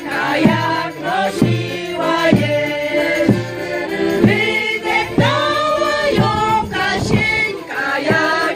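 A women's folk choir singing a Polish folk song together in full voice, with a low beat about once a second underneath.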